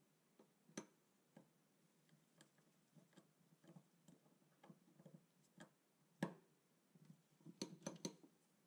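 Faint clicks and taps of small steel surface-gauge parts being handled and fitted together by hand, with a sharper knock about six seconds in and a quick run of clicks near the end.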